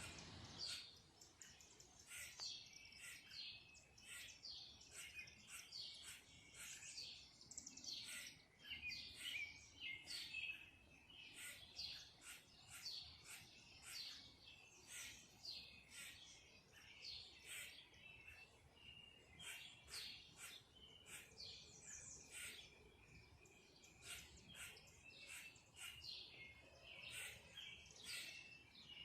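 Faint songbirds chirping and calling, a near-continuous stream of short high chirps mixed with a few longer, thin whistled notes.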